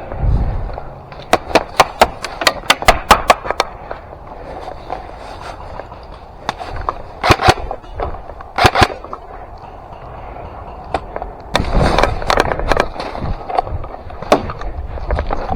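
Airsoft guns firing: a quick string of about a dozen sharp shots in the first few seconds, two louder single shots in the middle, then more shooting mixed with heavier thumps and movement near the end.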